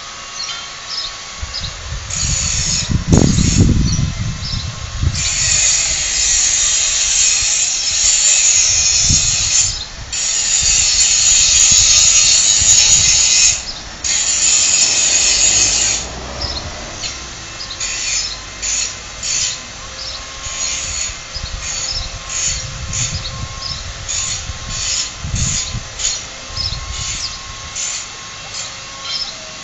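Tool work heard off camera: several seconds of continuous rasping, then short rhythmic strokes about one and a half to two a second, like hand sawing or scraping. Gusts of wind rumble on the microphone.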